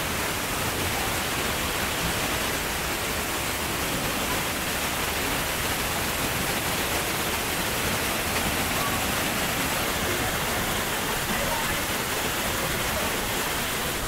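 Alakapuri waterfall in full spate after heavy rain: falling water rushing with a steady, even, powerful sound.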